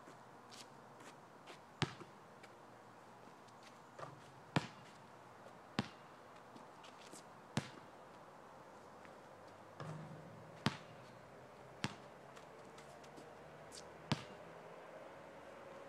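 Basketball bouncing on an asphalt court: about eight sharp single thuds, irregularly spaced one to three seconds apart.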